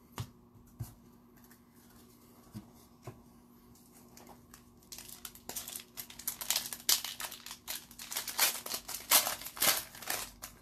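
Foil wrapper of a hockey card pack crinkling as it is torn open, with a few soft clicks of card handling before the crinkling starts about halfway through.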